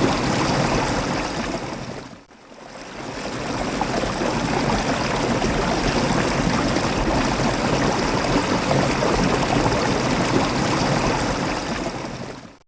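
Waterfall rushing steadily, a continuous wash of falling water. About two seconds in it briefly fades down and swells back up, and it fades out at the end.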